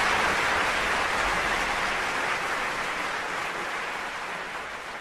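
A large audience applauding, a dense, even clatter of many hands clapping that slowly dies away.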